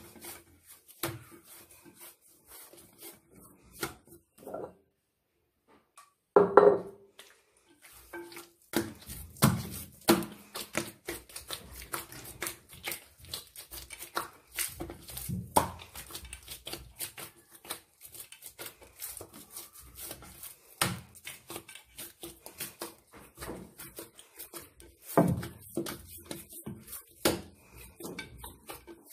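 Hands kneading dough in a glazed earthenware bowl: a run of irregular thuds and slaps as the dough is pushed, folded and pressed against the clay. There is a pause of about a second and a half some five seconds in, then a loud thud.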